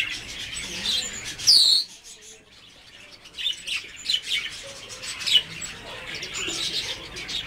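Blue whistling thrush calling: a run of short, high chirps, with one loud sliding whistle about a second and a half in, a short lull, then the chirping picks up again.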